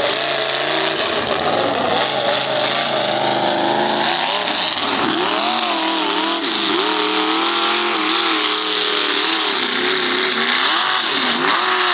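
Lifted mud-bog pickup truck's engine revving hard as it drives through a mud pit. The pitch climbs steadily at first, then surges and drops again and again from about four seconds in as the driver works the throttle.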